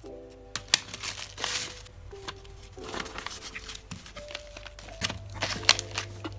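Kraft paper and a plastic bag crinkling and rustling in several short bouts as they are handled and folded into a cardboard box, with a couple of sharp taps. Background music with held notes plays underneath.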